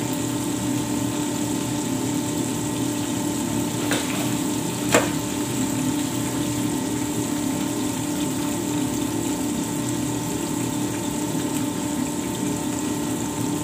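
Floured fish fillets deep-frying in a wire basket in a commercial deep fryer: a steady sizzle and bubbling of hot oil as the fish finishes cooking, over a steady hum, with two short clicks about four and five seconds in.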